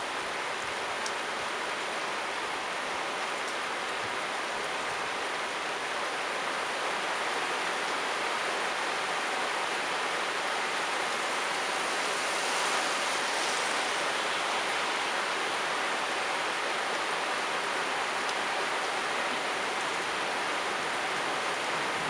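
Steady rain falling, an even hiss that grows a little heavier around the middle.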